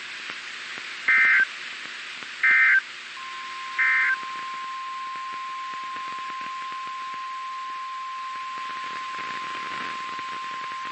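NOAA Weather Radio alert tones over radio hiss. Three short screeching bursts of SAME digital header data come about a second apart, then the steady single-pitch 1050 Hz warning alarm tone starts about three seconds in and holds.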